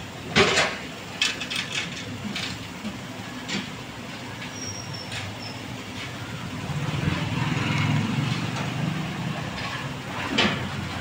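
A few sharp knocks and clatters, then a low vehicle rumble that swells and fades over about three seconds before another knock near the end.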